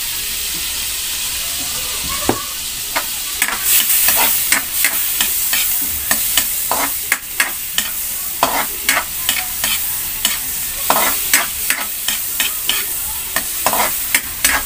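Minced garlic sizzling in melted butter in a metal wok, just added. A metal spatula stirs it, scraping and clinking against the pan in irregular strokes from about two seconds in.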